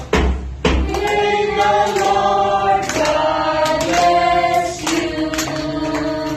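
Several voices singing a song together in long held notes over sharp, fairly regular beats.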